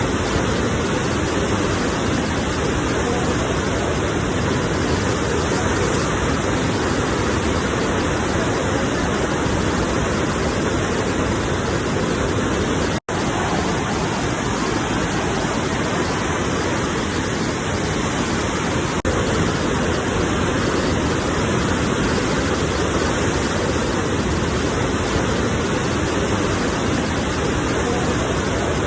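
Steady rushing of sea waves. It cuts out for an instant about 13 seconds in.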